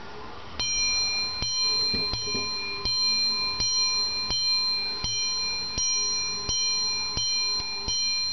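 Antique French framed pendulum wall clock striking the hour on its bell: about a dozen evenly spaced blows, a little under one a second, each leaving the bell ringing into the next. The dial shows twelve o'clock.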